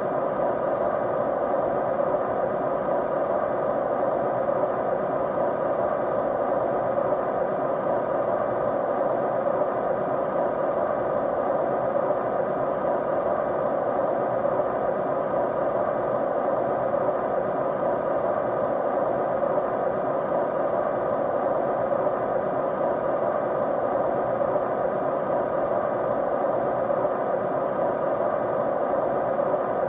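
Steady white noise, an even, unchanging rushing sound with most of its weight in the middle range.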